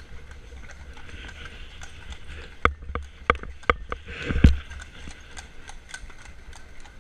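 Horse hooves clip-clopping on cobblestones: a steady run of light strikes, with a few much louder, close strikes from about two and a half to four and a half seconds in, the last the loudest.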